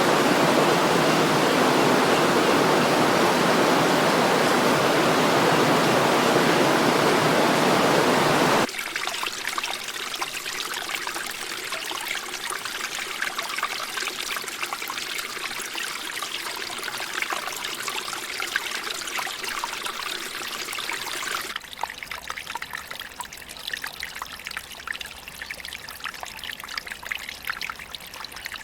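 Falling water from waterfall recordings, as three separate clips. First a loud, dense, steady rush. About nine seconds in it cuts abruptly to a lighter, splashier flow. About twenty seconds in it cuts again to a quieter trickle.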